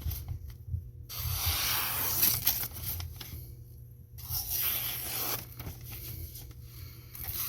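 Freshly sharpened knife blade being test-cut through a material, in two long slicing strokes: one starting about a second in, the other around four seconds in.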